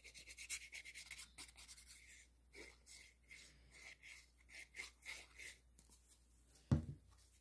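Faint scratching and rubbing of a liquid glue bottle's tip drawn across cardstock: quick short strokes for the first two seconds, then slower, scattered ones. A single low thump comes near the end.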